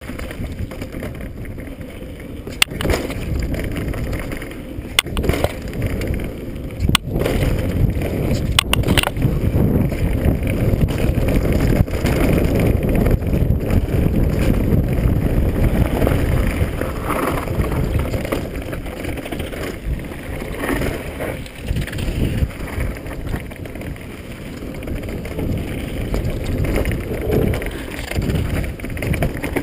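Mountain bike descending a dirt trail at speed: a steady rumble of wind on the microphone and tyres on dirt, with several sharp clacks from the bike in the first nine seconds.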